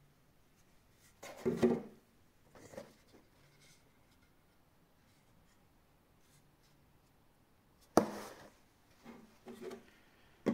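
Handling noise from a hard PLA 3D-printed piece: a few brief rubs and light taps against the hand, then a sharp knock about eight seconds in as it is set down on a cardboard box, followed by a couple of softer bumps.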